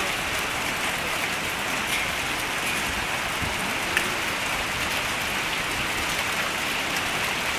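Hail and rain falling on wet pavement: a steady hiss with a few sharper ticks of stones striking, one more distinct about four seconds in.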